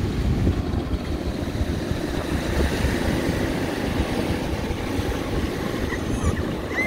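Wind buffeting the microphone over the wash of breaking surf, a steady rough rumble. A brief high-pitched cry is heard near the end.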